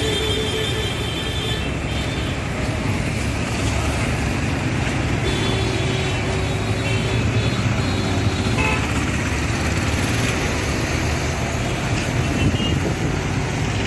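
Busy city street traffic: the running engines of passing cars, buses, trucks and motor scooters, with a steady tone for a couple of seconds around the middle.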